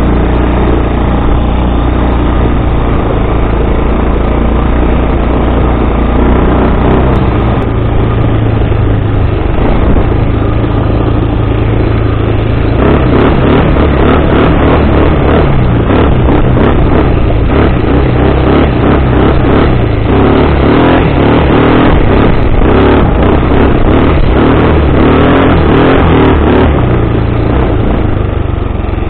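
Bashan 250 cc quad's engine running during an off-road ride. It runs steadily at lower revs at first, then from about halfway it works harder, with a busier, rougher sound and many small knocks and rattles.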